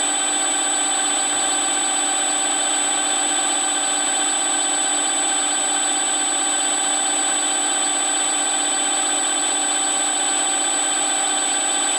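Milling machine spindle running at a steady speed, a constant motor whine made of several held tones, one of them high-pitched, while an edge finder spins in it.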